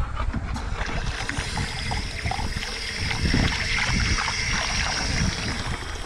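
Water running and splashing from an outdoor drinking-water tap.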